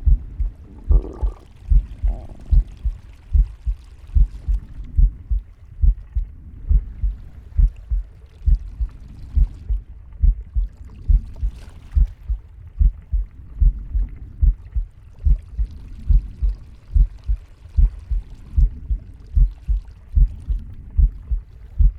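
Heartbeat heard up close: a steady run of low, double thumps, with soft breathing rushes behind them and a short gurgle about a second in.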